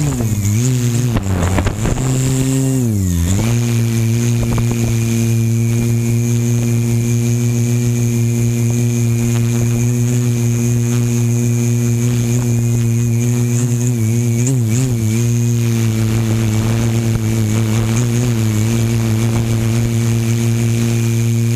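Multirotor drone's electric motors and propellers buzzing loudly, heard from a camera mounted on the drone itself. The pitch dips and rises several times in the first few seconds as the drone manoeuvres, then settles into a steady hover hum with brief wobbles later on.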